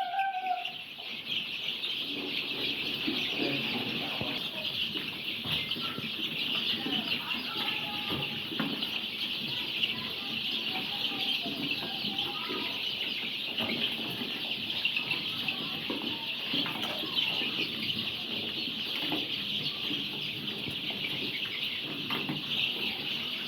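A large flock of young layer chicks peeping all at once: a dense, steady high-pitched chorus, with scattered lower single chirps and light ticks from the birds moving about.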